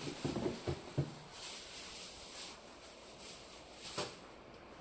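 Wood fire crackling in a small metal camp stove: a few soft pops in the first second and one sharp crack about four seconds in, over a faint hiss.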